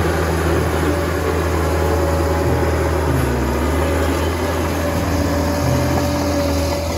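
Liebherr crawler bulldozer's diesel engine running steadily under load as the blade pushes a pile of soil and rock, with a deep steady hum.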